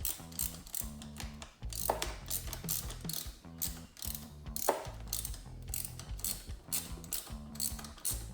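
Background music with a steady beat: a low bass line changing notes in even steps, under crisp percussion ticks about three to four times a second.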